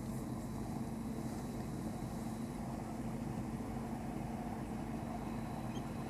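Car engine idling: a steady, unchanging low hum.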